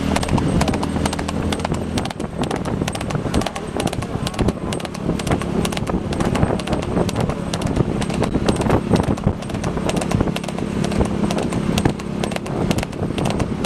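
Motorcycle engines running steadily while riding, with many sharp clicks scattered over them.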